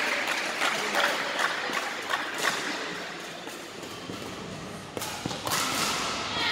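Badminton rackets striking a shuttlecock, with sharp cracks and thuds echoing in a large sports hall. The hits are sparse in the middle and come quickly again about five seconds in.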